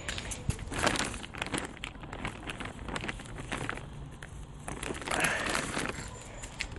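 Plastic compost bag crinkling and rustling as compost is scooped from it, with scattered crackles and clicks. There are louder bursts of rustling about a second in and again about five seconds in.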